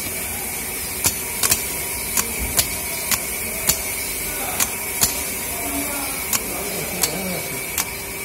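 A bench-tested car starter motor clicking about a dozen times at irregular intervals as power is tapped to it, without spinning up. The motor is stuck fixed in one position and will not rotate.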